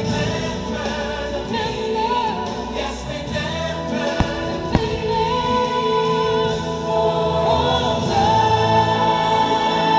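Fireworks show soundtrack of choir singing with music, with two sharp firework bangs about half a second apart near the middle.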